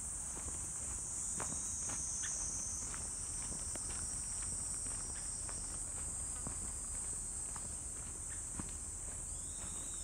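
Steady high-pitched chorus of insects, with the irregular footsteps of someone walking.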